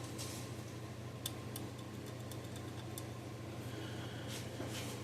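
Small sharp clicks and taps from handling the scale's circuit board and parts, about half a dozen in the middle stretch, with a faint rustle near the end, over a steady low hum.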